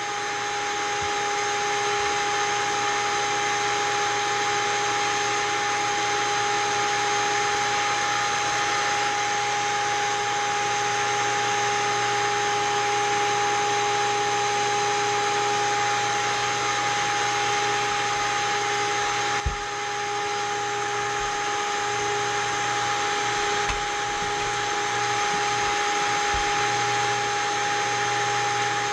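Seamer Down Now carpet seam tool's electric motor running steadily with a constant whine, a few faint knocks underneath.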